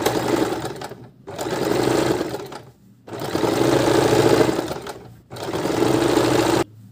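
Sewing machine stitching in four runs of a second or two each with short pauses between, sewing a line of stitches along a sleeve seam; it stops near the end.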